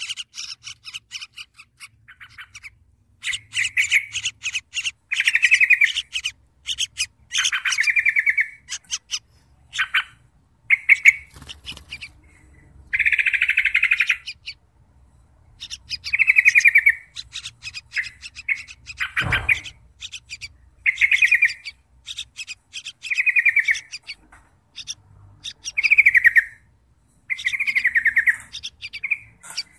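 Yellow-vented bulbul nestlings begging in the nest: rasping, rapidly pulsed calls in bursts of up to about a second, repeated every second or two. A single sharp knock comes about two-thirds of the way through.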